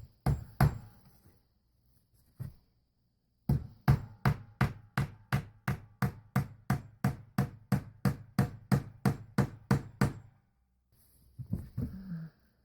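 A hammer driving nails: a few scattered blows, then a steady run of about twenty strikes at roughly three a second that stops near the end.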